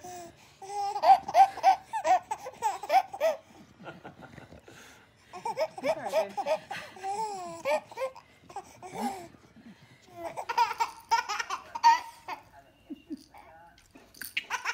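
Baby laughing hard in three runs of rhythmic belly laughs, about four pulses a second, with short pauses between them.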